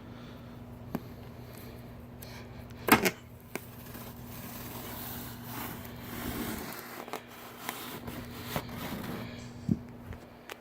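Cardboard boxes and packing material being handled and opened: scattered rustles, scrapes and light knocks, with one sharp loud knock about three seconds in, over a steady low electrical hum.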